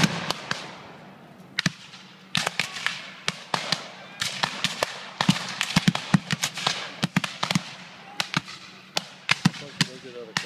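Black-powder musket fire from reenactment infantry: a ragged stream of sharp, irregular shots, many overlapping, with a loud report right at the start and the firing thickest in the middle and again near the end.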